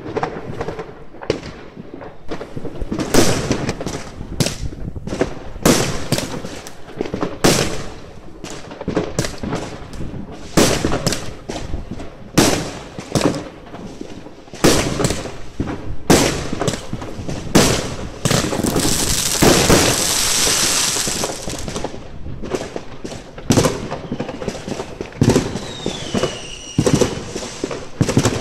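Fireworks going off: a rapid, irregular run of sharp bangs and pops, with a few seconds of dense hissing just past the middle.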